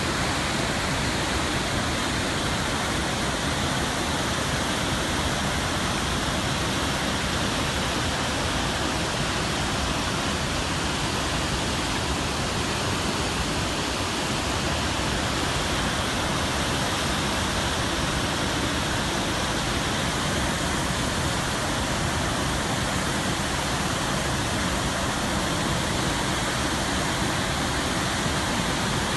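Large, tall waterfall, a dense steady rush of falling water that stays at an even loudness throughout.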